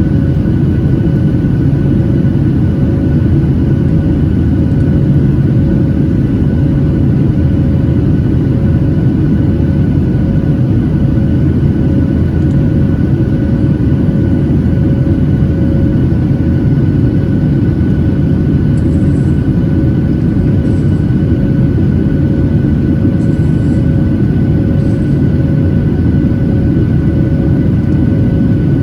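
Boeing 737-800's CFM56-7B jet engines running steadily, heard from inside the passenger cabin: a loud, even roar with a few faint steady whining tones above it.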